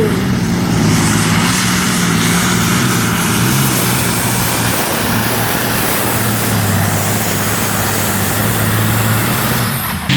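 Pulling tractor's engine running hard under load on the track. Its pitch drops somewhat about halfway through and then holds steady.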